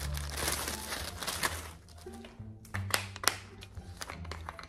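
Plastic zip-top bag crinkling and rustling for about two seconds, then a few sharp plastic clicks as a pill-bottle cap is worked open. Background music with a bass line plays underneath.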